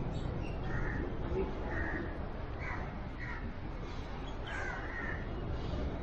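Crows cawing, about half a dozen short caws spread across a few seconds, over a steady low rumble.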